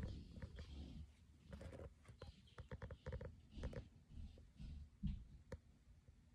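Faint handling noise: scattered light clicks and rustles, with a quick run of clicks in the middle and one sharp click near the end.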